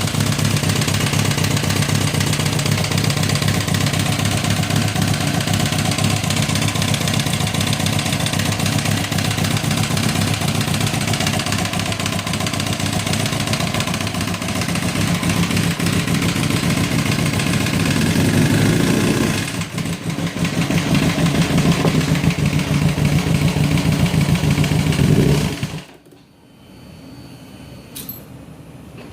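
2006 Kawasaki ZX-10R inline-four engine running with a loud knock that the owner takes for possible rod knock; cylinder 1 has no compression after a smashed spark plug. The engine dips briefly about two-thirds of the way through, runs on, and is shut off near the end.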